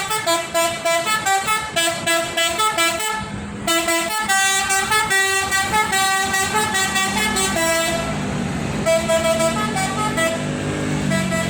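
Basuri 'telolet' multi-tone musical horn playing a quick tune of short stepped notes, breaking off briefly about three seconds in and then going on with longer held notes. A low engine note rises under it near the end.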